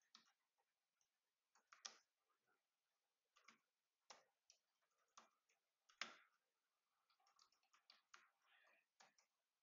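Faint, irregular clicks of computer keyboard keys as a command is typed, a key or two at a time with short pauses between.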